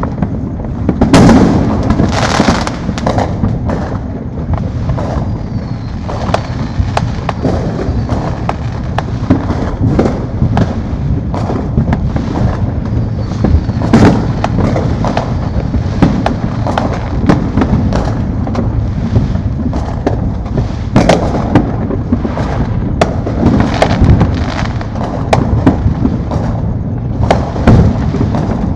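Many fireworks and firecrackers going off at once, a dense run of pops and booms over a constant rumble of more distant explosions. The heaviest cluster comes about a second in, with another busy stretch near the end. Many are consumer and illegal aerial fireworks.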